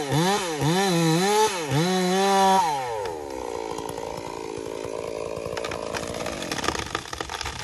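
Small chainsaw at full throttle in the felling cut, its pitch dipping and recovering about twice a second as the chain loads up in the wood. About two and a half seconds in the throttle is released and the engine winds down to a quieter idle that fades away, followed near the end by a scatter of sharp clicks and cracks.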